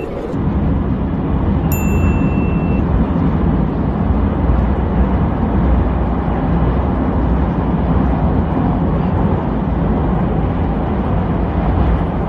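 Metro train running: a steady low rumble and noise inside the carriage, with one short high beep about two seconds in.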